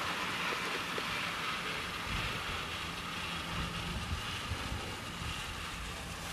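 Wind on the microphone of an open chairlift chair moving uphill: a steady hiss, with an uneven low rumble coming in about two seconds in.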